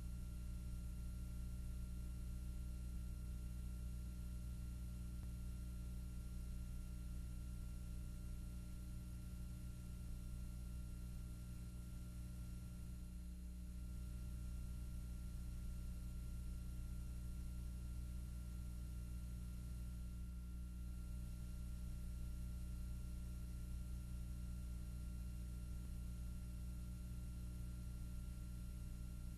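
Steady low electrical hum with faint hiss, unchanging throughout, with no other sound.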